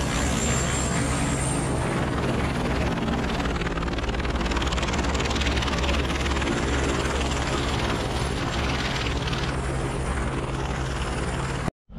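Helicopter running close by: a loud, steady rotor and turbine noise with a low hum underneath. It cuts off suddenly near the end.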